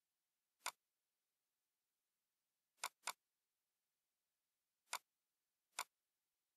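Computer mouse button clicking five times, sharp and short, two of the clicks in quick succession about three seconds in.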